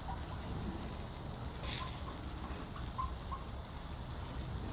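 A chicken making a few faint, short soft clucks over a steady low rumble, with a brief rustling hiss a little under two seconds in.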